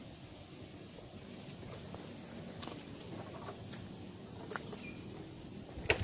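Footsteps on a dry, leaf-strewn forest path, with scattered crackles and a sharp click near the end. Faint high chirping carries on behind.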